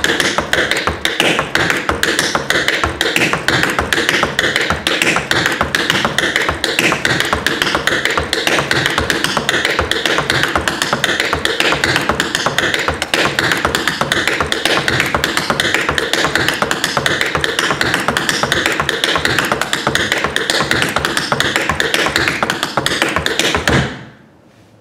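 Metal taps on tap shoes striking the floor in a fast, unbroken stream of clicks as the Cincinnati tap step (spin, heel, shuffle, heel, step) is repeated over and over. The tapping stops abruptly near the end.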